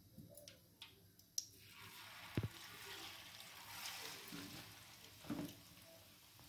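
Battered cauliflower pieces dropped into hot oil, a few soft knocks as they go in, then a faint steady sizzle of deep-frying from about two seconds in.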